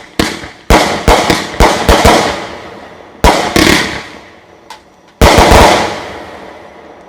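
Finale of a 500-gram, 36-shot consumer firework cake: aerial shells burst in quick succession for about two seconds. One more shell bursts a little after three seconds in. A final cluster of loud bursts comes just after five seconds in and echoes away, making a double finish.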